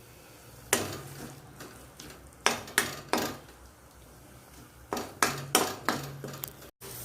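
A spoon knocking and scraping against a cooking pan while stirring ginger-and-jaggery halwa: sharp clinks in irregular clusters.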